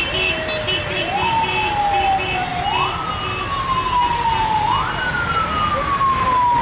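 A siren sounding in slow cycles, each one climbing quickly and then sliding slowly down, about every two seconds, reaching a little higher each time. A rapid train of short beeps runs under it and stops about two-thirds of the way through, over steady street traffic noise.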